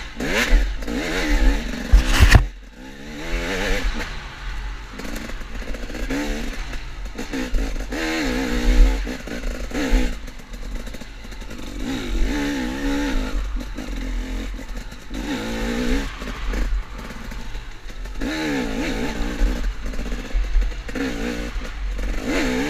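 KTM enduro dirt bike engine revving up and backing off again and again through a tight woods trail, with the bike clattering over the ground. Two loud knocks come about two seconds in.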